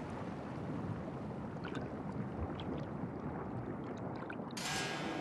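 Steady rush of water heard underwater, with a few faint bubbly ticks around the middle. Near the end a brighter hiss comes in with faint held musical notes.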